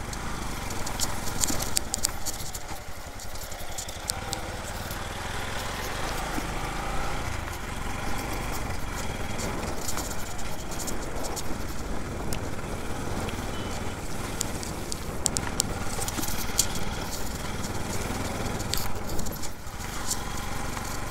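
Motorcycle riding at low speed along a rough, slippery dirt road: a steady engine and road rumble with scattered clicks and knocks from the bumpy surface.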